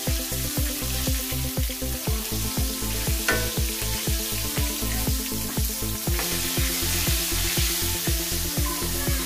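Chicken pieces sizzling in oil in an aluminium wok, with a spatula stirring and scraping them around the pan. Background music with a steady beat plays underneath.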